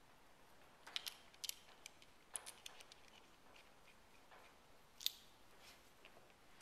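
Sharp little metallic clicks from a small steel part of a Kitagawa B206 power chuck handled in the fingers: about eight clicks between one and three seconds in, then one louder click near five seconds.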